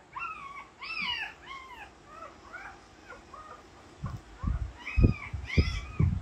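Newborn puppies squealing and whimpering: a run of short, high, rising-and-falling cries, two or three a second. Several dull low thumps near the end are the loudest sounds.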